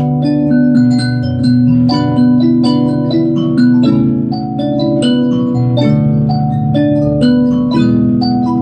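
Harmony array mbira being played: plucked metal tines ringing in overlapping chords and melody lines. Each note has a sharp attack and then a long, almost pure tone.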